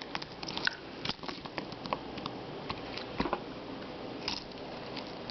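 Irregular small clicks and ticks from computer keyboard keys being pressed and rattled as cleaning putty is pushed onto them and lifted off, a somewhat louder click about three seconds in.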